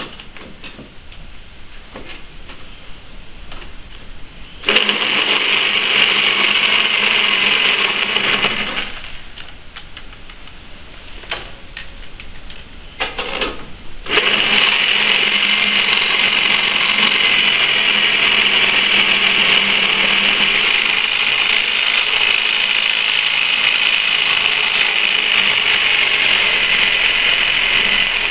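Corded reciprocating saw cutting through a riding mower's steel frame: one run of about four seconds, a pause with a few knocks, then steady sawing from about halfway through.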